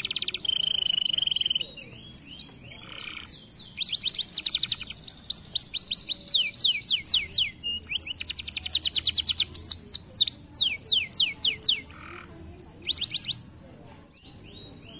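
Domestic canary singing: fast trills of rapidly repeated, downward-sweeping high notes, with one held whistled note near the start. The song breaks off briefly a couple of seconds in and again near the end.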